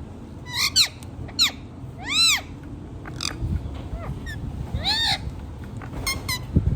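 Rose-ringed (Indian ringneck) parakeet giving a series of short, shrill screeching calls, each rising then falling in pitch, about eight in all with irregular gaps.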